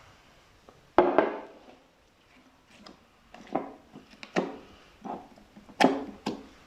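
Slime being pressed and squeezed by hand, making a series of about six short wet squelches and pops, the loudest about a second in and another near the end.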